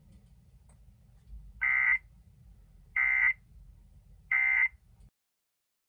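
Emergency Alert System end-of-message signal: three short bursts of SAME digital data tones, about a second and a third apart, marking the end of the warning broadcast.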